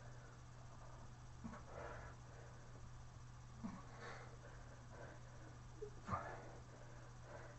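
Faint breathing of a man doing push-ups, a short puff of breath about every two seconds with soft bumps, over a steady low hum.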